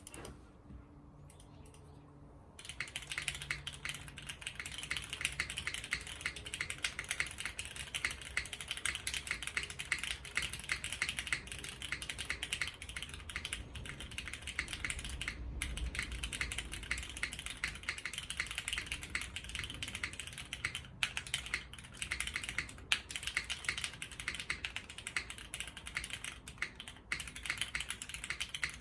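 Steady fast typing on a custom mechanical keyboard with an aluminum plate, retooled Cherry MX Black linear switches lubed with 205g0, GMK keycaps and Durock stabilizers, recorded on an iPhone. The typing starts about two and a half seconds in and runs on with a few short breaks.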